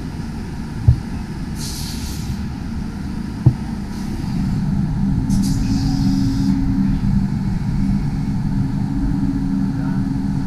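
Multi-axis CNC machine working behind its enclosure: a steady machine hum that grows louder about four seconds in, with a held tone. Two sharp clacks come in the first few seconds, and there are two short hisses, the second as coolant sprays at the spindle.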